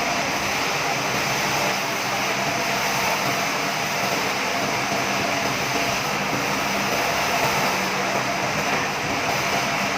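Sawmill machinery running steadily, an even mechanical whir with a faint low hum and no distinct cuts or knocks.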